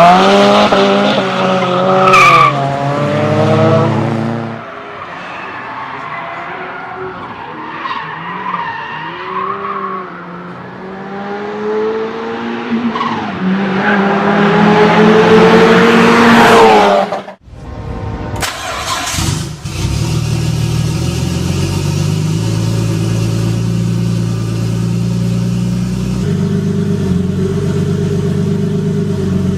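Turbocharged car engines revving: the pitch rises and falls with the throttle and climbs to a loud peak about sixteen seconds in. After a sudden break, a second engine holds a steady rev, shifting its note once near the end.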